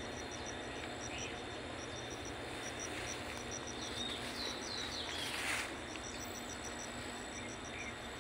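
Insect chirping in quick groups of three or four high pulses that keep repeating, over a steady outdoor background noise. There is a brief swish about five and a half seconds in.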